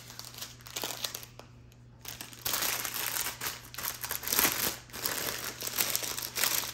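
Plastic zip-top bags of diamond painting drills crinkling and rustling as they are handled and shuffled, fainter for the first two seconds, then louder with many small crackles from about two and a half seconds in.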